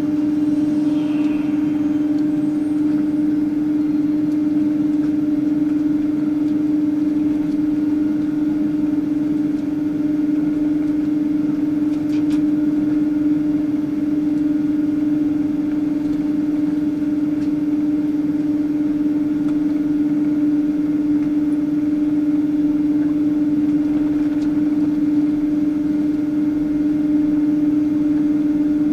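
Steady hum inside a Boeing 777-200's passenger cabin on the ground before takeoff: one constant low tone over an even hiss.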